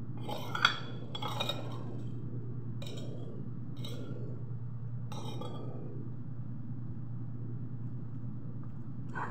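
Metal spoon clinking and scraping against a ceramic plate while scooping fried rice, a few short strokes in the first five seconds, the loudest about half a second in. A steady low hum runs underneath.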